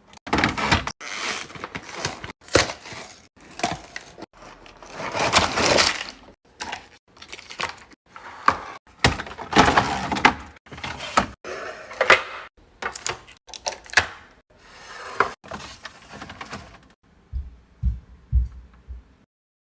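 Restocking a mini fridge: drinks and packaged snacks are knocked together, set down and handled in a dense run of clatters and knocks. A few dull low thumps come near the end.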